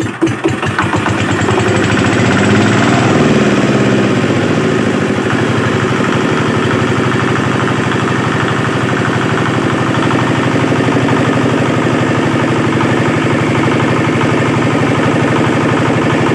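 R-180 single-cylinder water-cooled diesel engine hand-cranked to a start: uneven firing in the first second, its speed changing for a few seconds, then running steadily.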